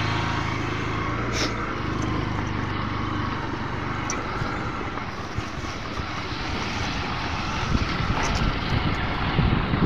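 Motorcycle engine running at a steady speed while riding. Wind buffets the microphone, gusting more in the second half.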